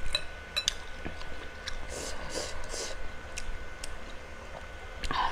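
Close-up mouth sounds of chewing beef rib meat, with a few light clicks and a short louder sound near the end.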